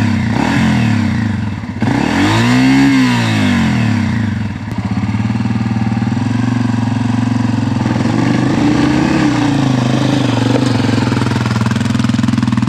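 Dirt bike engine running, revved once about two seconds in so the pitch rises and falls back, then running steadily.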